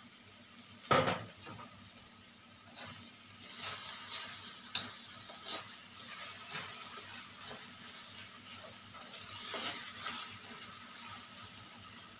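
Beef strips being stir-fried in an aluminium wok, the slotted spatula scraping and clicking against the pan over a faint sizzle, with a sharp knock about a second in.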